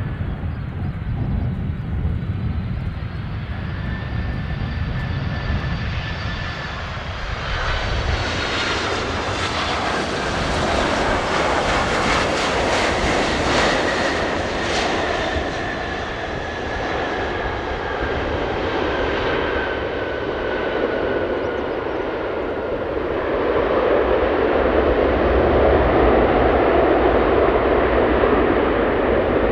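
Boeing 767-300ER jet airliner landing: its twin GE CF6-80C2 turbofans run with a whine that falls slightly in pitch as it passes. After touchdown the engine noise swells into a louder rush of reverse thrust during the rollout.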